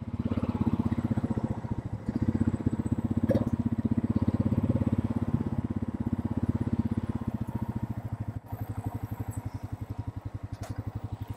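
ATV engine running at low speed with a fast, even throb, briefly dropping in level twice.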